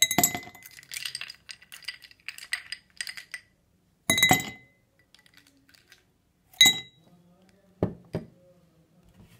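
Ice cubes spooned into a tall glass tumbler, clinking against the glass: a run of clinks and rattles over the first few seconds, then two single sharp clinks, and two dull knocks near the end.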